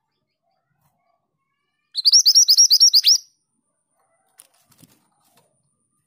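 Female minivet singing one quick run of about nine high, upward-sweeping chirped notes lasting just over a second, about two seconds in, followed by a few faint soft ticks.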